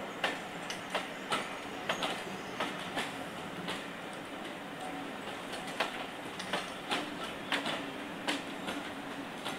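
Railway passenger coaches rolling past at low speed, their wheels clicking over the rail joints in an irregular clickety-clack, often in pairs as each bogie crosses, over a steady rumble.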